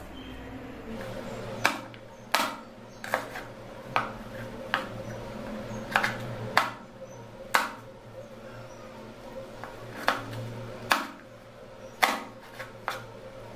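Kitchen knife cutting okra on a wooden chopping board: sharp, irregular knocks of the blade striking the board, about one or two a second, over a steady low hum.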